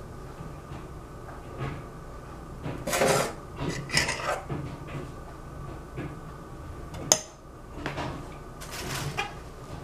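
Metal spoon scraping thick chocolate mousse from a stainless steel pot and clinking against the pot and a glass jar, a few separate scrapes, with one sharp clink about seven seconds in.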